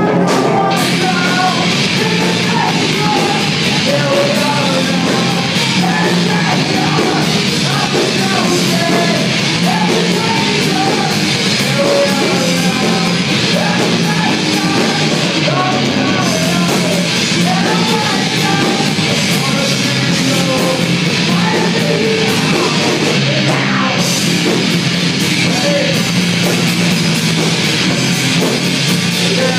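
Punk band playing live through amplifiers: electric guitars, bass guitar and drum kit, with a vocalist singing and shouting into a microphone. It is loud and continuous.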